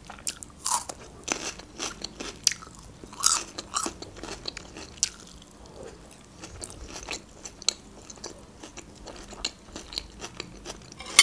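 Close-miked biting and crunchy chewing of raw red bell pepper: several loud crisp crunches in the first few seconds, then softer, irregular chewing. One sharp click right at the end is the loudest sound.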